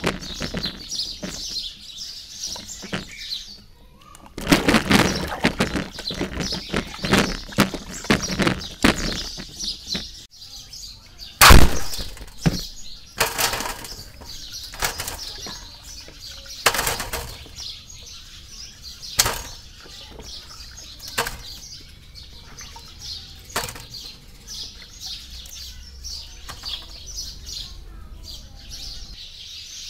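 Water splashing as guavas are swished and rubbed by hand in a tub, then a series of knocks as the wet guavas are dropped one by one into a plastic basket, one knock much louder than the rest about a third of the way in. Birds chirp in the background.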